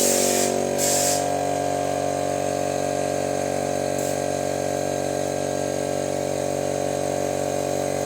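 A small motor-driven sprayer runs with a steady whine, applying used transmission oil to farm machinery. Short hisses of spray come in the first second or so.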